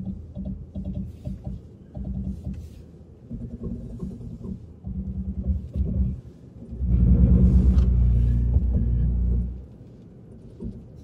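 Lexus GX460's Crawl Control working on a slippery downhill: the ABS actuator rapidly clicking and pulsing the brakes, then a loud steady grinding groan for about three seconds, starting about seven seconds in. This is the normal sound of the system's sensors and ABS clamping the wet, muddy brakes to hold a crawl speed.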